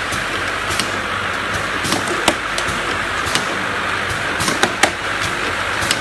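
Chubby gorilla bottle filling, plugging and capping machine running: a steady mechanical whirr with irregular sharp clicks and knocks from its moving parts.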